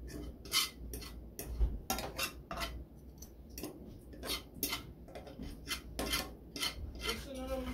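A cooking spoon clinking and scraping against a metal pan as food is stirred, in short irregular knocks a few times a second.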